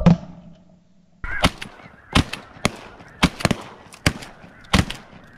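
Several shotguns firing in an uneven volley, about eight shots over four seconds, with snow geese honking underneath.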